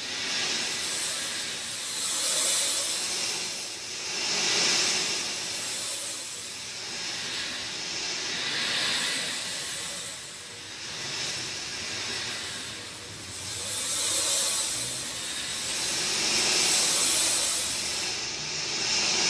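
Steady rainfall, a dense hiss that swells and eases in waves every few seconds.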